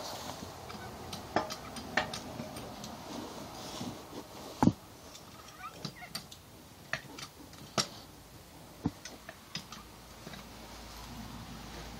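Hand-operated hydraulic pump being worked to load a ram, with irregular sharp clicks and knocks from the pump lever and the loaded rig, one louder knock about four and a half seconds in. Pressure is building on the gauge as the anchor is pull-tested.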